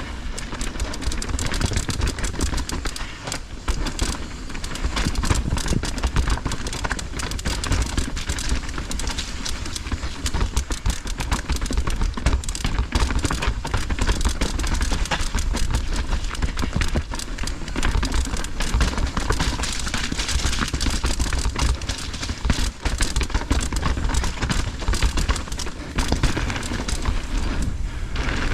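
Mountain bike riding fast down a rough dirt trail: tyres crunching over dirt and rocks with a constant dense rattle of many clicks, and wind buffeting the microphone in a deep rumble.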